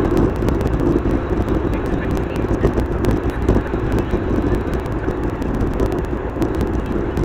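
Steady car cabin noise from tyres and engine on an open road, a dense rushing sound with a rapid crackle of small clicks over it.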